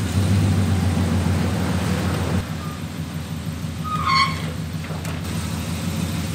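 1993 Chevrolet C3500 dually's V8 engine running at a low, steady idle as the truck is driven. A brief high chirp comes about four seconds in.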